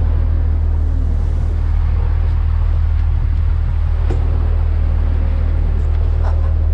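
Boat engine running steadily underway: a constant low drone with an even hiss of water and air over it.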